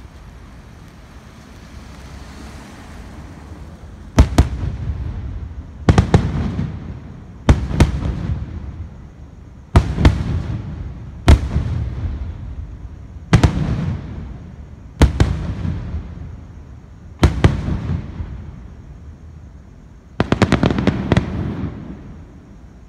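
Aerial fireworks shells bursting in a steady series of about eight sharp booms, one every one and a half to two seconds, each trailing off in a low rumble. Near the end comes a burst of rapid crackling.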